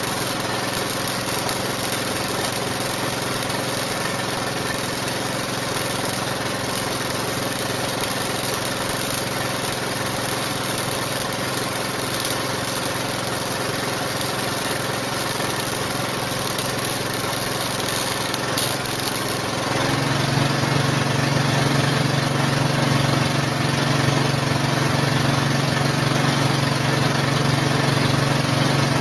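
MIG welding: a steady crackling hiss from the arc over a steady machine drone. About two-thirds of the way through the welding stops and the drone gets a little louder, with a stronger low hum.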